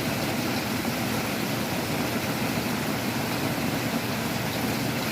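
Heavy rain and strong wind: a steady, even rushing noise with a low rumble.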